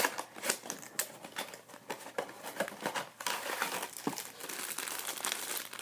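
Mystery Mini blind-box packaging being opened by hand: crinkling and crackling that starts suddenly and keeps going in many short, sharp rustles.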